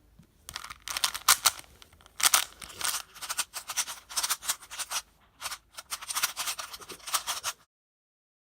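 Plastic speed cube being turned fast during a timed solve, its layers clacking and rattling in quick flurries of turns. The cube is lubed with powdered graphite and Maru lube. The turning cuts off abruptly near the end.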